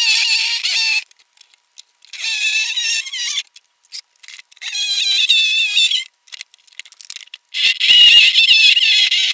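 Handheld power tool working the edge of a plywood boat hull: a loud, high whine that wavers in pitch, in four stretches broken by abrupt silences, the last one the loudest.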